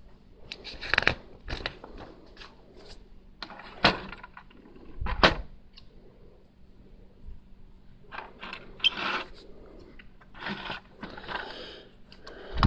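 Plastic Lego bricks being handled: irregular clicks and scrapes, with a heavier knock about five seconds in and a busier run of clicking and rustling between eight and eleven seconds.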